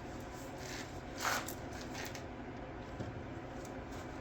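Steady low background hum with a brief rustling hiss a little over a second in and a faint click about three seconds in.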